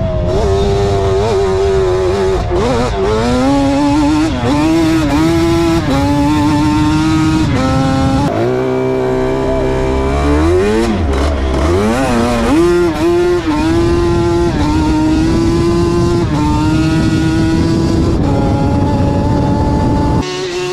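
Yamaha Banshee ATV's two-stroke twin engine revving hard under load. The pitch climbs and falls again and again with shifts and throttle. About eight seconds in it drops away low, then climbs back up.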